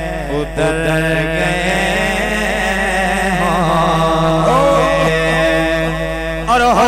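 A man singing a naat into a microphone, holding long ornamented notes that waver and glide in pitch, over a steady low hum.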